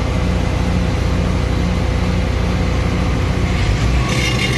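A large engine running steadily, a low drone with a regular throb of about three beats a second. About four seconds in, a sharp hiss joins it.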